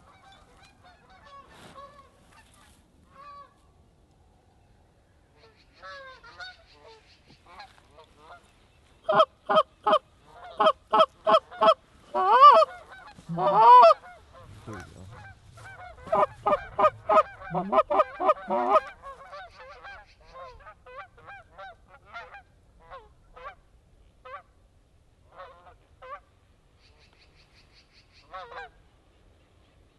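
Mallard duck call blown close by in loud, rapid series of quacks, with a couple of longer drawn-out notes in between, to work approaching mallards into the decoys. Fainter scattered quacking comes and goes around it.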